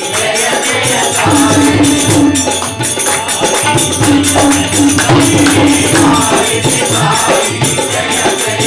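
Devotional bhajan: group singing held on long notes over a steady beat from a barrel-shaped dholak hand drum, hand clapping and jingling percussion.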